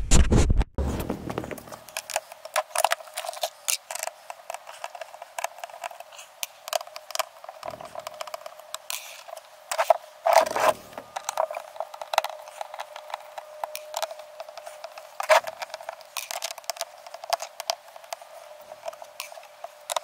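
A small screwdriver and gloved hands working on a plastic Thetford toilet cassette tank: a run of small clicks, taps and scrapes of metal and rubber on plastic, with a few louder knocks about ten seconds in and again about fifteen seconds in.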